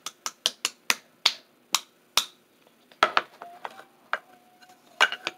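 Sharp taps on a plastic jar of loose setting powder, about a dozen in an uneven rhythm, as it is tapped to get powder out. In the second half a faint steady tone sounds under the taps.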